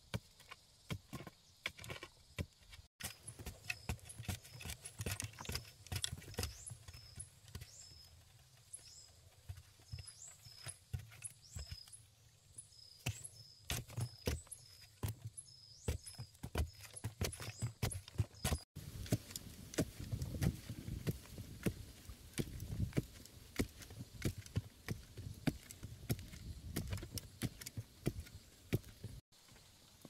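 Irregular knocks and dull thuds of hand work with a tool. Through the middle stretch a short high chirp repeats about twice a second.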